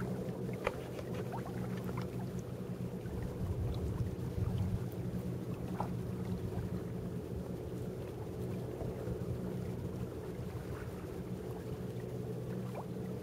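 Boat engine running steadily at an even pitch, with a low rumble swelling for a couple of seconds near the middle and a few faint clicks.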